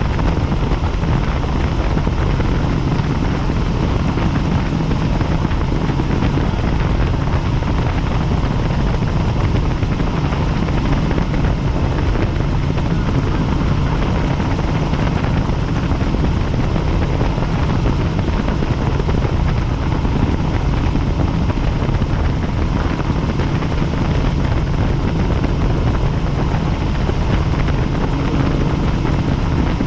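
Tour helicopter in flight: a loud, steady drone of rotor and engine, unchanging throughout.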